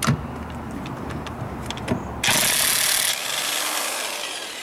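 Corded electric impact wrench on a car's wheel lug nut, undoing it: a few clicks as the socket goes on, then about two seconds in the wrench hammers loudly for about a second and runs on more quietly until near the end.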